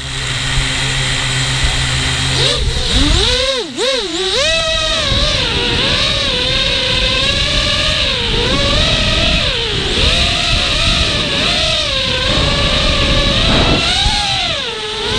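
FPV racing quadcopter's electric motors whining, the pitch swooping up and down with the throttle. A low steady hum for the first couple of seconds gives way to sharp swings in pitch about three to four seconds in, then a wavering whine that keeps rising and falling.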